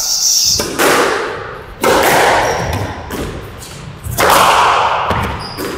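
Squash rally: sharp cracks of racket on ball and ball on wall, each ringing out in the court's echo, about five hits with a longer gap between the third and fourth. Brief high squeaks come in between.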